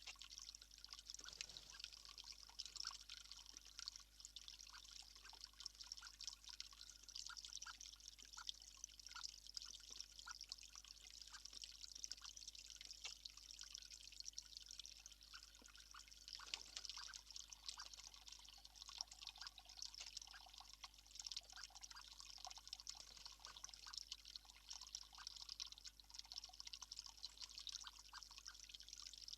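Faint water trickling and dripping steadily, with many small irregular drip ticks.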